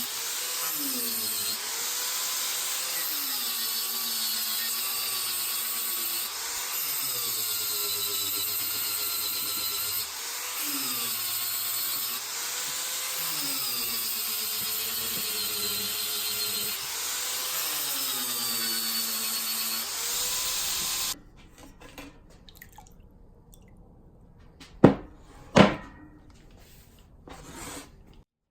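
A hand-held electric power tool running steadily, its pitch repeatedly sagging and recovering every couple of seconds. It stops suddenly about two-thirds of the way through, followed by two sharp clicks a little later.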